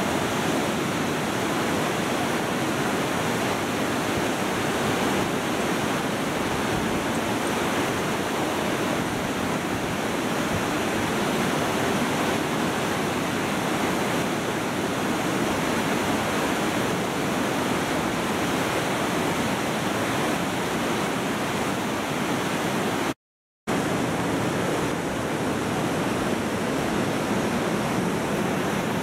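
Fast whitewater river rushing in a steady, even noise, cut by a half-second dropout to silence a little after twenty seconds in.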